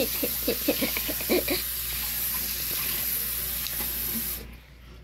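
A voice in short quick bursts during the first second and a half, over a steady hiss that cuts off suddenly near the end.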